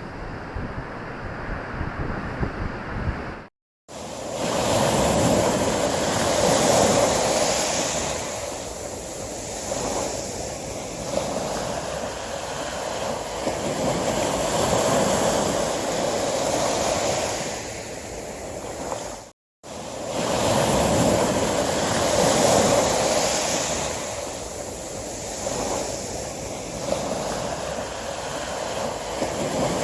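Ocean surf washing in and drawing back in slow, swelling surges, cut twice by a brief drop to silence where recordings are joined, about 4 s and 19 s in. The first few seconds are a different recording with a lower rumble and wind on the microphone.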